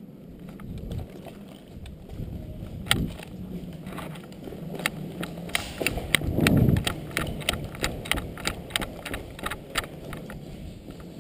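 Footsteps of a person moving quickly on concrete, sharp even steps about two to three a second, with a low rumble on the head-mounted microphone that swells about halfway through.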